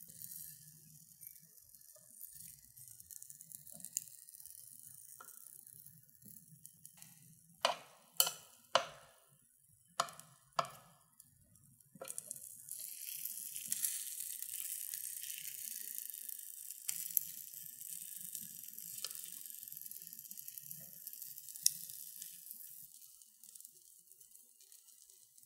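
Pudding cubes sizzling faintly on a hot waffle iron's plates, with the sizzle growing steadier and louder from about halfway through. About six sharp clicks come a little before the middle, as metal tongs tap against the plates.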